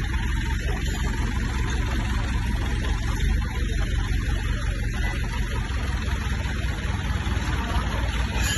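15 kVA diesel generator running steadily, a constant low engine hum with no change in speed.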